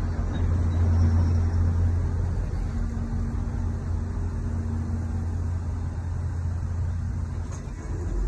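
Steady low hum of an idling engine, a little louder for the first couple of seconds.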